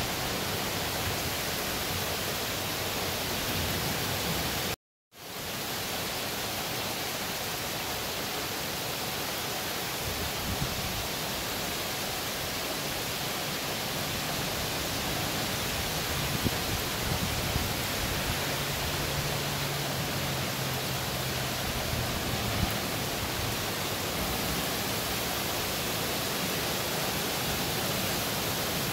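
Heavy rain falling steadily, a continuous even hiss. The sound cuts out completely for a moment about five seconds in.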